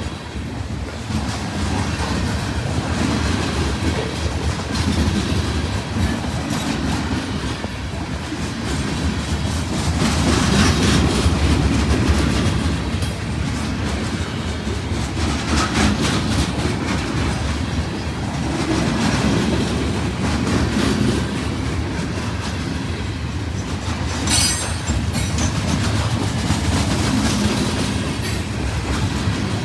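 A train's railroad cars rolling past at speed: a steady rumble and clatter, with the wheels clicking over rail joints.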